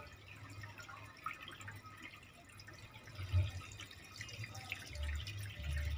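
Water from a hose trickling and splashing into a glass aquarium, with many small drips and plinks.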